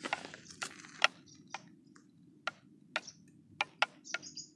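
A spoon clicking against a bowl as curd is stirred together with salt and black pepper: sharp, uneven taps, roughly two a second.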